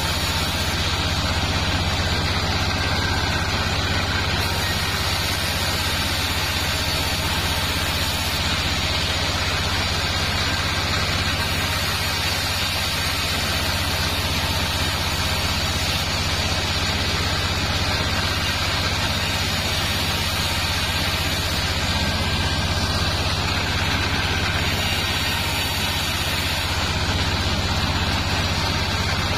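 Bandsaw mill running steadily with a low drive hum, its blade sawing sengon wood boards as they are fed through.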